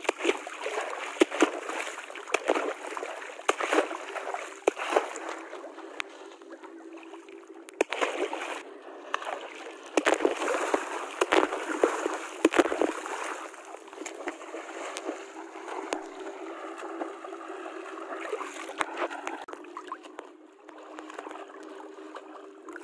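Water splashing and sloshing with many sharp knocks and clicks scattered through, over a faint steady low hum.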